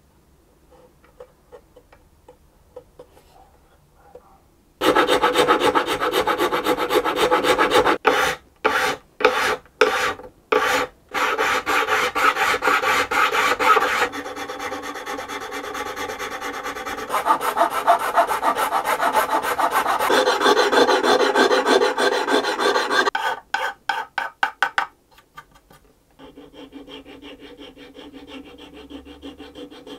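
A hand file rasping along the edge of a violin's fingerboard, trimming it down. It starts about five seconds in, mostly as loud continuous strokes, with short separate strokes around a third of the way through. Near the end it gives way to a fainter, steadier scraping.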